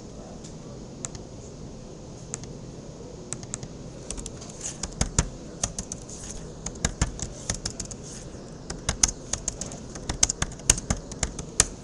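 Computer keyboard keys being typed: a few scattered clicks at first, then quicker runs of keystrokes from about four seconds in, including repeated presses of the Enter key.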